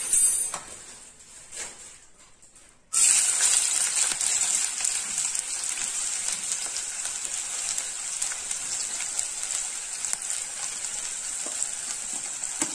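Chopped onion frying in hot oil in a stainless steel kadai. After a few light clicks, a loud sizzle starts suddenly about three seconds in and carries on steadily as the onion fries.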